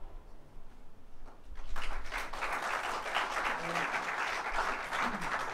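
Audience applauding: many hands clapping together, starting about a second and a half in.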